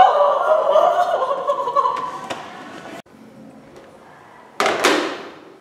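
A person laughing, cut off abruptly about three seconds in, then low room tone broken by one sudden, loud short noise near the end that fades within half a second.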